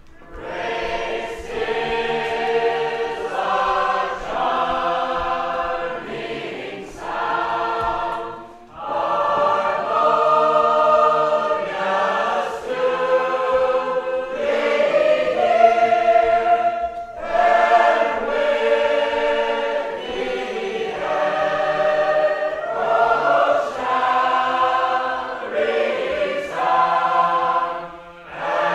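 A large unaccompanied Sacred Harp shape-note choir singing a hymn tune in several-part harmony, in full voice, with short breaks between phrases.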